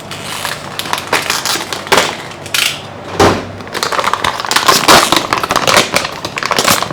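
Plastic packaging crinkling and crackling as it is handled and torn open, in irregular bursts with louder crunches about two, three and five seconds in.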